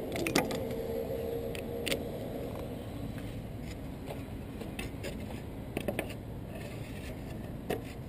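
A Ryobi cordless drill being handled while a bit is fitted and the drill is positioned: several sharp clicks and knocks, the loudest just after the start, with a steady hum over the first two and a half seconds.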